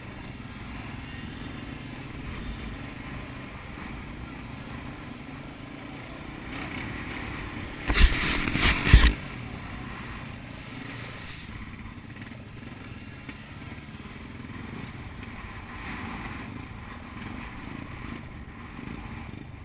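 ATV engine running steadily while riding a rough, muddy trail, with a loud rushing, crackling burst lasting about a second partway through.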